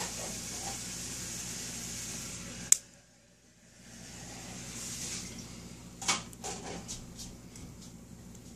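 Handheld dog nail clippers snipping through a dog's toenails: one sharp click about three seconds in, a second about six seconds in, then a few smaller clicks. A steady hiss runs underneath.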